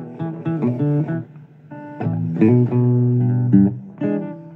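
Blues song: plucked guitar with a bass line behind a voice singing, holding one long word near the middle.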